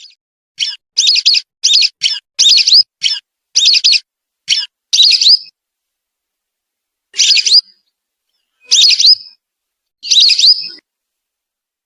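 Whistling duck (belibis) calls played as a bird-lure recording. First a quick run of about ten short whistled notes, then after a pause three longer single calls about a second and a half apart.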